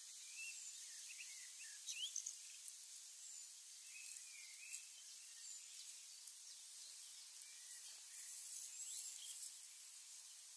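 Faint outdoor ambience: a steady high hiss with scattered short, high chirps and whistles from birds, some sliding up and down. The calls are loudest about two seconds in, with a few brief soft clicks among them.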